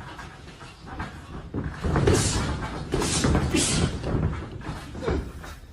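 Punches landing in a boxing workout: irregular sharp thuds, several a second at times.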